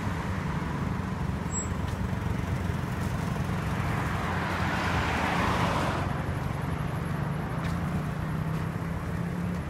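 Street traffic at night, with a steady low engine hum. A car passes close by about halfway through, its engine and tyre noise swelling and then fading.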